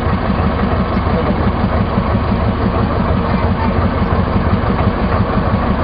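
The river tour boat's engine running steadily, with an even, rapid low pulse.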